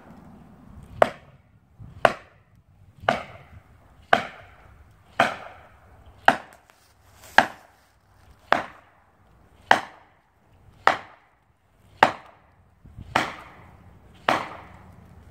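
Hammer blows driving felling wedges into the back cut of a large poplar to tip it over. The blows are sharp and evenly paced, about one a second, fourteen in all, each with a short ring after it.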